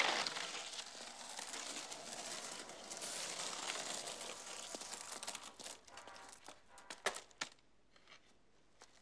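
Skateboard wheels rolling on rough asphalt, a steady gritty noise that fades out about six seconds in, followed by a few sharp clacks of the board.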